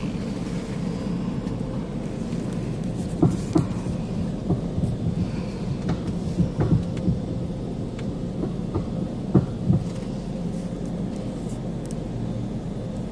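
Automatic car wash running: a steady low rumble and hum, with a scatter of short knocks and thumps between about three and ten seconds in.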